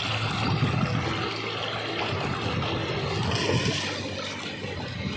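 Shallow seawater splashing and lapping at the shoreline, an uneven rushing noise.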